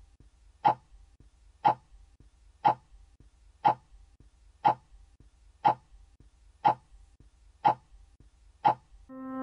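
A short, sharp hit sound effect repeating exactly once a second, nine times, over a faint low hum. Music fades in just at the end.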